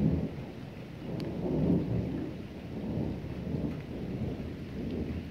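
Thunder rumbling in several long swells after a lightning flash, over steady rain falling.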